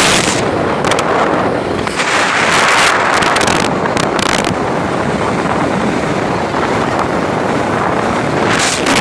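Wind rushing over the microphone of a phone held out on a moving motorcycle at highway speed: a loud, steady rush with a few sudden sharp gusts, the vehicle and road noise buried beneath it.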